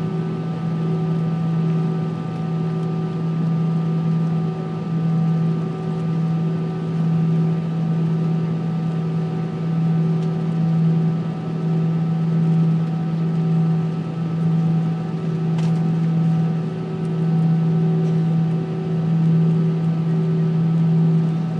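Airbus A319 jet engines at taxi power, heard from inside the cabin: a steady low drone that swells and fades slowly, with a few steady whining tones above it.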